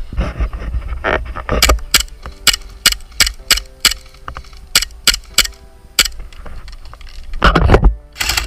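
Airsoft pistol firing a quick string of sharp shots, about two to three a second, from about two to six seconds in. Rustling movement near the start and again near the end.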